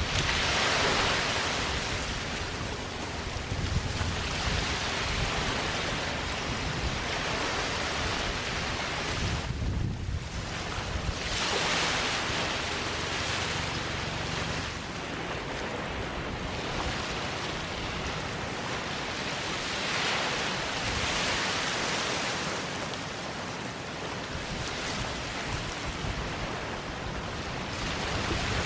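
Small waves breaking and washing up a sandy beach, swelling and ebbing every few seconds, with some wind noise on the microphone.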